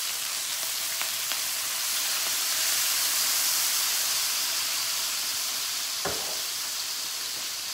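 Chicken sizzling in a Saladmaster stainless steel skillet, the sizzle swelling for a few seconds as soy sauce is poured into the hot pan. A single knock about six seconds in.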